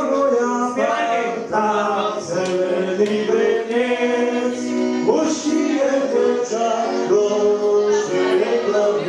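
Music with singing, a voice holding long notes.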